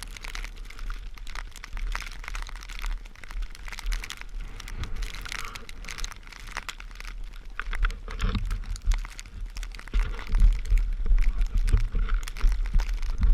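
Footsteps crunching and crackling through snow, irregular, with wind rumbling on the microphone that grows stronger near the end.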